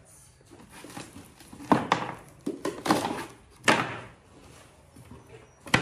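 Irregular knocks and clunks of hard objects being handled, with a cluster of several in the middle and one sharp knock near the end.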